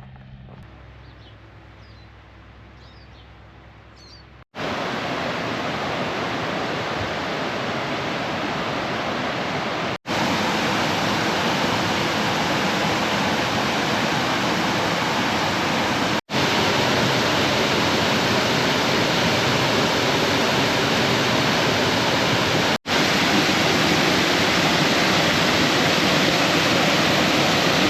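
Loud, steady rush of falling water from a waterfall, starting about four seconds in and cut off for a split second three times. Before it, a quieter stretch with a few faint bird chirps.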